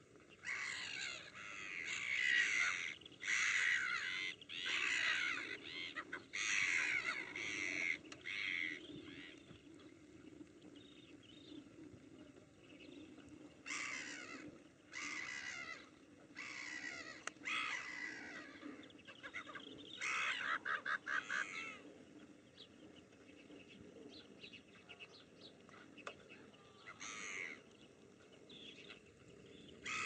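A flock of gulls calling: bursts of overlapping calls, densest in the first nine seconds and again around the middle, over a steady low background hum.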